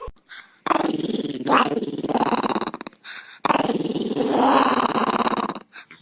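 A dog growling in two long, rough bursts with a short pause between them.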